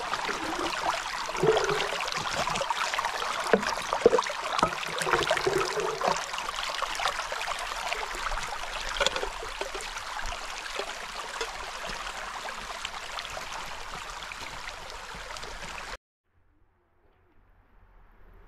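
Small mountain stream running and splashing over rocks, with a few louder gurgles in the first seconds. The water sound cuts off abruptly near the end.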